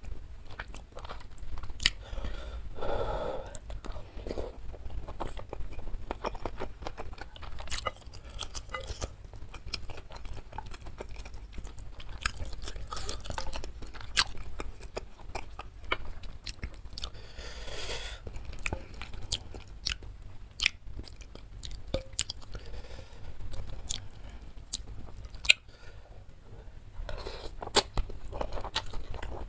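Close-miked eating: a man chewing bakso aci (chewy tapioca meatballs) and instant noodles in spicy soup, with many wet mouth clicks and smacks, and a slurp of noodles near the end.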